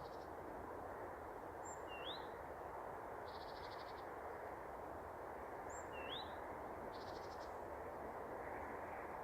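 An unidentified songbird whistling a short upslurred note twice, about four seconds apart, each led by a faint very high pip. Between the whistles comes a short, rapid, buzzy pulsed trill, twice, answering like a second caller. A steady hiss of background noise runs underneath.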